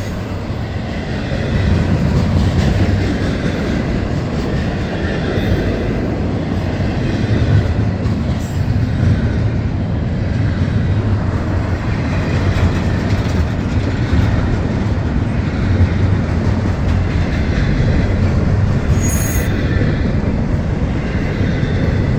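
Florida East Coast Railway intermodal freight train rolling past: a steady rumble of steel wheels on rail, a little louder from about a second and a half in.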